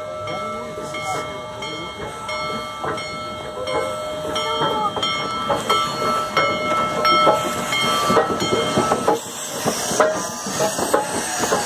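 Union Pacific Big Boy No. 4014, a 4-8-8-4 articulated steam locomotive, rolling slowly past at close range. Its running gear knocks and clanks over a steady ringing tone that stops about nine seconds in.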